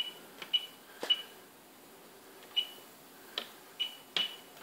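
Short high beeps from an Elo touchscreen's beep-on-touch setting, sounding once for each tap of a finger on the screen, about seven times at an irregular pace. A faint click comes with some of the taps.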